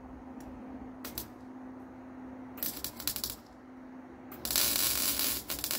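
Wire-feed welder tack-welding on a steel air tank: a few brief crackles, then a crackling burst about two and a half seconds in and a longer, louder one near the end.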